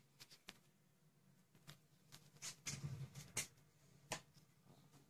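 Near silence: room tone with a few faint scattered clicks and a faint low hum a little past halfway.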